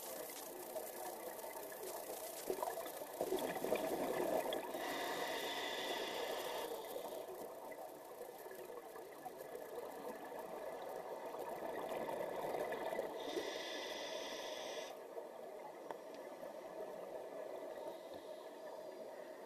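Scuba diver breathing through a regulator underwater: two breaths about eight seconds apart, each a bubbling exhalation followed by a hissing inhalation.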